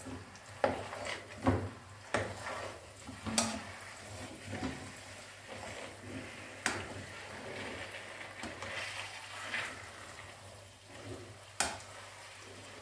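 Slotted spatula scraping and knocking against a non-stick wok as stiff semolina halwa is stirred, with sharp knocks at irregular intervals. A soft sizzle from the halwa cooking on the flame runs underneath.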